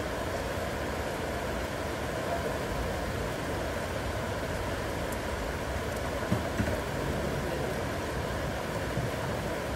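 Steady heavy rain, with a faint steady hum underneath and two soft knocks a little after six seconds in.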